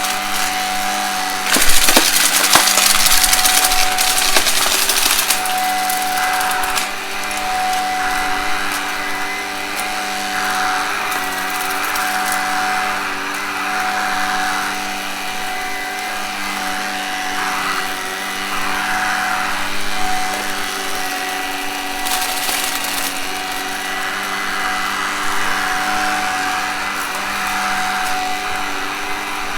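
Vacuum cleaner running steadily with a humming motor, crackling and rattling as it sucks up crunchy debris from a carpet. The pickup noise is loudest from about two seconds in to about five seconds, with another brief surge near the end.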